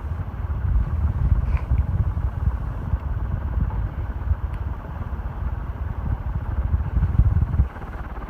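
Fasco Heat Cycler ceiling fan on high speed: its strong downdraft buffets the microphone, giving a loud, uneven low rumble that cuts off suddenly near the end.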